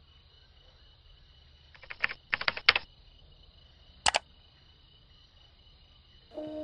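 A steady high-pitched insect-like drone, with short bursts of rapid clicking: three close together about two seconds in and one more about four seconds in.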